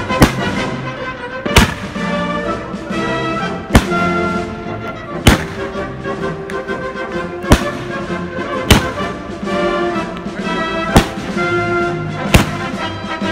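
Aerial firework shells bursting in sharp booms, about eight times at irregular intervals of one to two seconds, over patriotic music.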